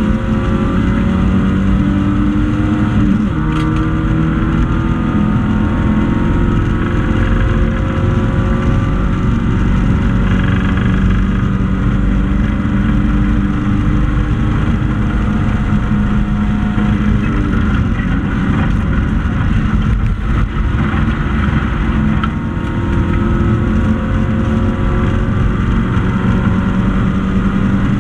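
A racing hatchback's engine running hard under race load, heard from inside the cabin; its pitch climbs and drops again and again as it goes through the gears, over a constant rumble of road and drivetrain noise.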